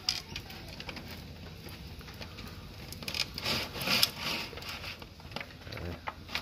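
Disposable aluminium foil tray rustling and scraping against a gas barbecue's grill as it is moved into place, with scattered small clicks. The loudest rustling comes about three to four and a half seconds in.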